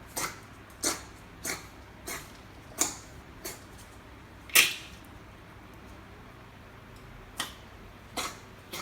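Chihuahua puppy coughing: a run of short coughs about two a second, one loudest cough a little past the middle, a pause, then a few more near the end. The owner is unsure whether this is kennel cough or a collapsing trachea.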